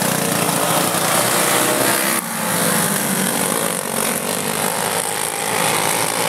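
Several champ kart engines running hard together as the pack races past, a steady high-pitched buzz of small engines that dips briefly about two seconds in.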